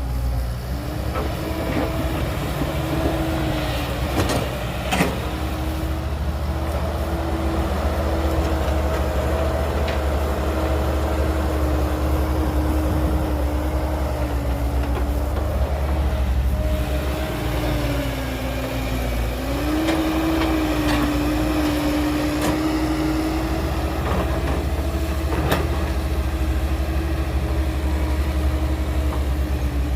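Heavy diesel engine of earthmoving machinery running steadily under load, with a droning whine. The pitch dips briefly about two-thirds of the way through and climbs back. A few sharp knocks sound about four to five seconds in and again near the end.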